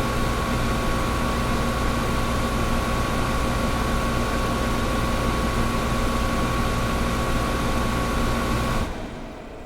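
Air conditioner running with a steady whooshing hum and a steady whine on top. Near the end the hum and whine cut off suddenly, leaving a much quieter hiss.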